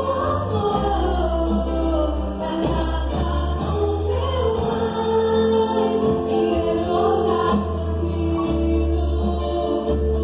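A Christian gospel band playing, with voices singing a melody over sustained bass notes that shift every second or two.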